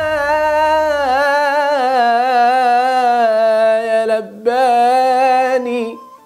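A male munshid sings an Egyptian religious ibtihal solo, without accompaniment: an improvised open melody drawn out in long melismatic held notes with wavering ornaments. There is a quick breath about four seconds in, and the voice stops near the end.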